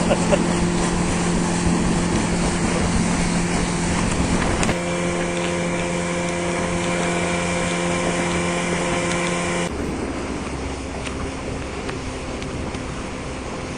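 Motorboat engine running steadily under way, a constant hum whose tone shifts abruptly about five and about ten seconds in.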